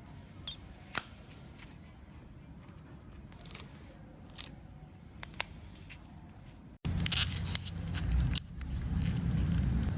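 Jelly cube slime being handled and squeezed, giving scattered crisp pops and crackles. About two-thirds of the way through, a cut brings a louder stretch of denser crackling over a low rumble.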